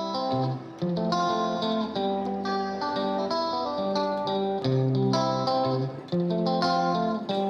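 Background music led by guitar, with sustained notes changing every half second or so.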